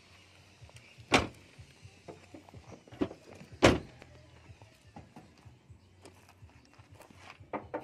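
Honda HR-V's rear tailgate being shut: two loud thuds about two and a half seconds apart, the second the louder, with a few lighter clicks and knocks around them.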